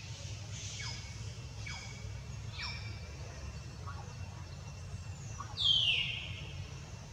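Short high calls that fall in pitch, about one a second, then a louder, longer falling call near the end, over a steady low rumble.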